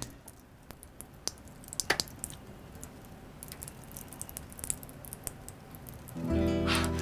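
Scattered light clicks and taps, two sharper ones between one and two seconds in. Background music comes in near the end.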